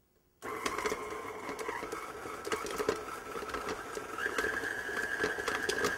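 Electric stand mixer switched on about half a second in and running at medium speed, beating gorgonzola cheese and herbs: a steady motor whine with light clicks. The whine steps up slightly in pitch about four seconds in.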